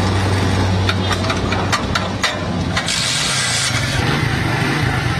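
Motorcycle engine running at idle, then revved about two to three seconds in and held at a higher, faster-running pitch. A few sharp clicks sound in the first half.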